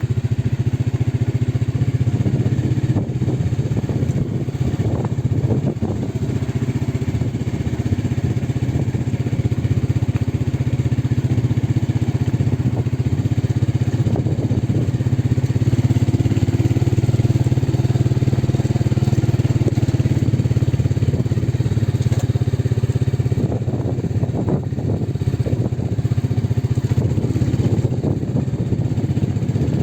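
A vehicle's engine running steadily under way, with a low, even drone and road noise that hold through with only slight rises and falls.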